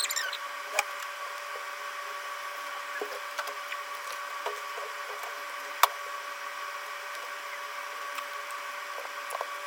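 Scattered light clicks and taps of small parts and tools being handled, with one sharp click about six seconds in, over a steady electrical hum.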